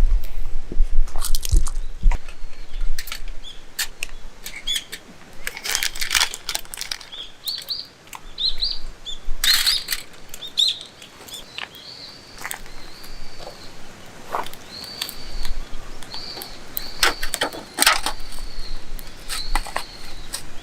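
A bird calling over and over in short, high, arched chirps, joined by scattered sharp clicks and cracks, a cluster of them loudest about ten seconds in.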